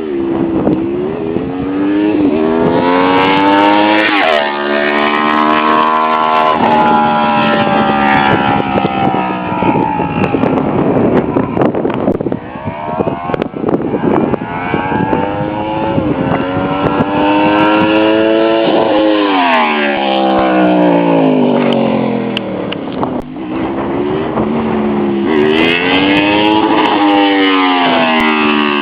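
Honda VFR750F (RC36) V4 motorcycle engine revving hard under acceleration. Its pitch climbs steeply, holds, then falls away as the throttle is rolled off, several times over.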